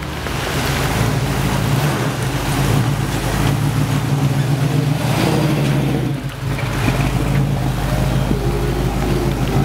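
Vehicle engine running with a steady low rumble over a hiss of rain and wet noise, dipping briefly about six seconds in.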